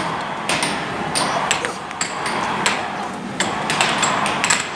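Air hockey game: the plastic puck and mallets clacking against each other and the table's rails in sharp, irregular knocks, over a steady background din.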